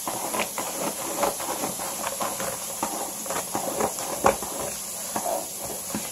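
Scissors snipping through the edge of a padded paper mailer, an irregular run of short cuts with paper crinkling between them, and one louder snap about four seconds in.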